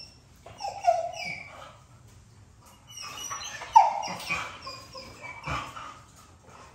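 Young pitbull puppies giving short whines and yelps, several separate cries with the loudest about four seconds in.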